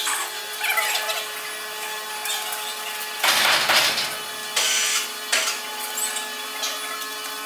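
Several short, harsh scraping noises over a steady hum, the loudest lasting most of a second about three seconds in.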